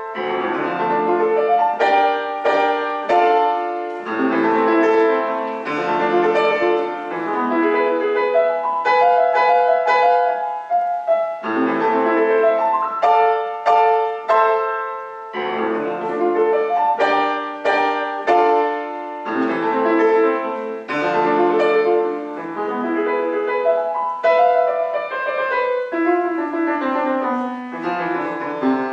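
Solo piano playing a melody over chords, in phrases with brief breaks between them.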